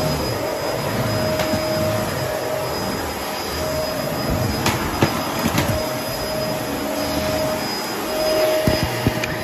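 Upright vacuum cleaner running steadily as it is pushed over a hard floor and onto a rug. A few sharp clicks come from the head, a couple around the middle and a couple near the end.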